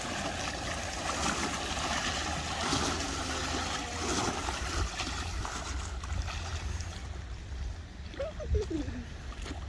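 Wake waves from a passing boat washing against the riverbank: a steady rushing splash of water, fuller in the first half, over a low rumble.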